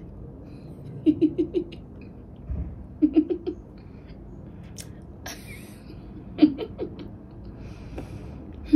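A woman laughing softly to herself in three short giggles of a few quick 'ha' pulses each, with breathy exhales between them.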